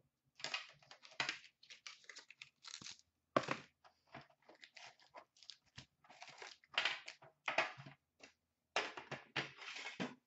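Hockey card packaging being opened and handled: irregular tearing and crinkling of wrappers and box cardboard, with foil card packs rustling as they are tipped out.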